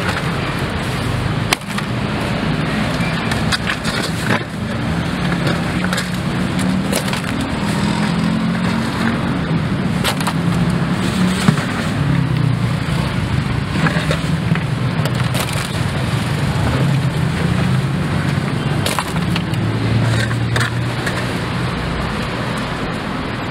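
Busy street-stall ambience: a steady low rumble and hiss with scattered sharp clicks and knocks, the sharpest about a second and a half in and again near the middle.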